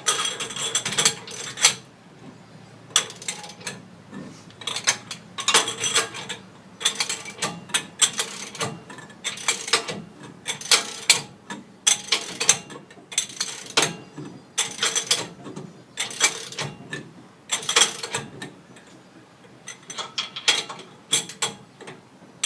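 Hand ratchet wrench cranked in short bursts of rapid clicking, about fifteen spurts with brief pauses between them.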